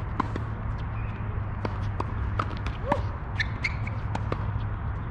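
Tennis being played: a series of sharp knocks of the ball off racket and court, with a few short shoe squeaks, over a steady low rumble.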